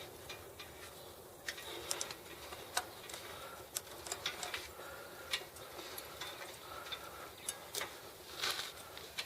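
Scattered, irregular light clicks and metallic taps from handling bicycle parts while removing the rear wheel of an old bike with a 3-speed hub.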